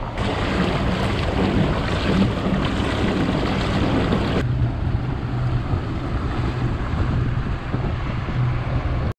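Motorboat under way at speed: the engine hums steadily beneath water rushing along the hull, with wind buffeting the microphone. The sound changes abruptly about four seconds in.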